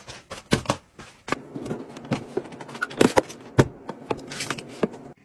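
Irregular sharp clicks, taps and knocks of household objects being handled, with a short lull about a second in.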